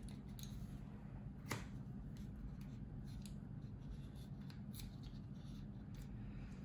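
Faint clicks and rustles of plastic model-kit parts and tweezers being handled, with one sharper click about a second and a half in, over a steady low hum.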